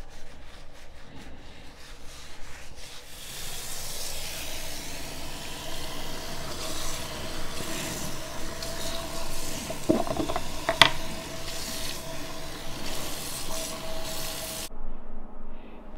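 A gloved hand scrubs shampoo into wet hair in short rubbing strokes, then a bathroom tap runs into the sink about three seconds in and water splashes over the hair as it is rinsed, with a faint steady whine underneath. The water sound cuts off suddenly near the end.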